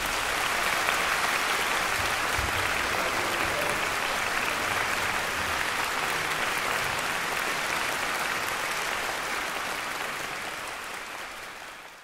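Concert audience applauding steadily after the final chord, fading out near the end.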